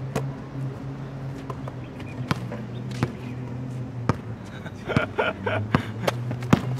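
A basketball bouncing on a concrete court as players dribble: sharp, irregular bounces, a few a second at the busiest, heavier in the second half. A steady low hum runs underneath.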